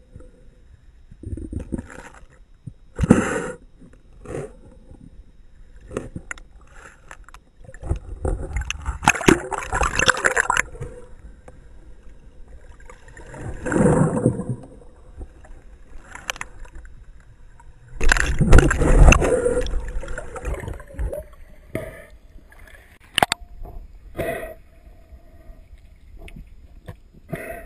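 Water gurgling and bubbling around an underwater camera, in irregular surges a few seconds long with scattered knocks against the housing; the loudest surge comes about two-thirds of the way through.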